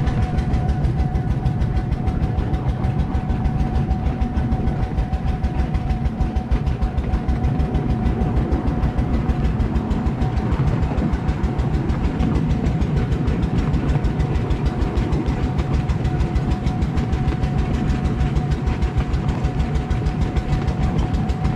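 Miniature railway locomotive running along the track, heard from on board at the front of the engine: a rapid, even throbbing with a steady high whine over it.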